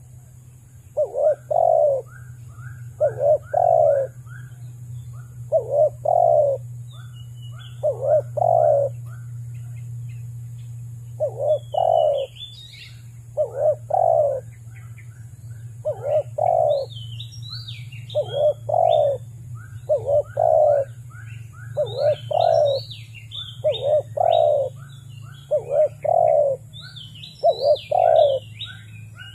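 A dove cooing over and over, a deep two-part coo about every two seconds. Smaller birds chirp higher above it, more often in the second half.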